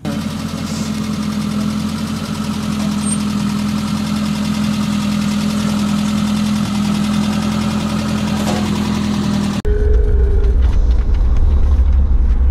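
Suzuki Samurai's engine running at low, steady revs with a constant hum. About ten seconds in it cuts abruptly to the louder, deep rumble of a vehicle driving, heard from a dashboard camera inside it.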